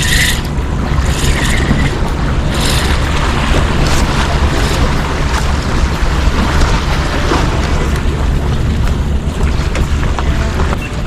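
Steady low rumble and hiss of wind on the microphone and sea at a harbour breakwater.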